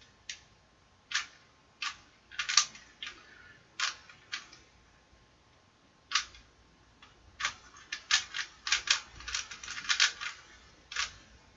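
Plastic puzzle cube (Rubik's-type) being turned by hand during a solve: its layers clack in irregular sharp clicks, some single and some in quick runs of several turns. The busiest run of turns comes in the last few seconds.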